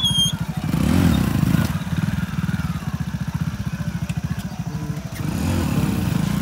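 Single-cylinder four-stroke engine of a Hero Passion motorcycle running at low speed with an even pulsing beat, revved up briefly about a second in and again near the end as the bike comes down off a dirt bank and pulls away.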